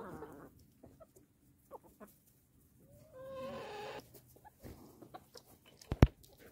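Chickens clucking, with one hen's drawn-out, wavering call about three seconds in. A single sharp knock close to the microphone about six seconds in is the loudest sound.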